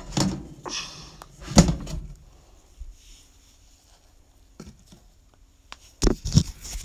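Knocks, bumps and rustling of hands and a bearded dragon being lifted out of a glass terrarium. The loudest bump comes about a second and a half in, and two more sharp knocks come near the end.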